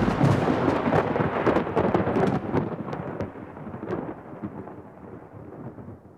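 Soundtrack sound effect: a crackling noise with scattered sharp clicks that starts suddenly and fades away steadily over about six seconds.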